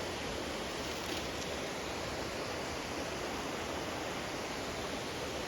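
Steady rush of creek water.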